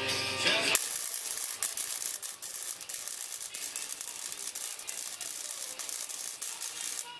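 Wire-feed (MIG) welding arc on steel tube, crackling and spitting steadily as a weld is run; the arc strikes about a second in and cuts off just before the end.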